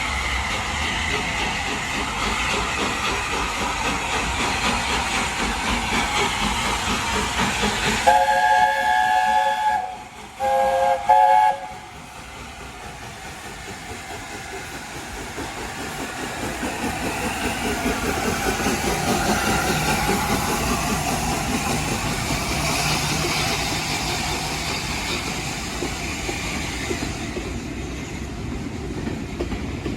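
Steam locomotive whistle blown twice, about eight seconds in: a blast of roughly two seconds, a short gap, then a shorter one, each with several tones sounding together. Around it is the steady hiss and running noise of the train, which swells for a while before easing off.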